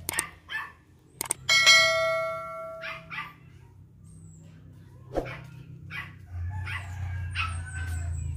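A dog barking in short single barks, with a mouse click and a ringing bell chime about a second and a half in: the sound effect of an on-screen subscribe-button animation. A low steady hum comes in near the end.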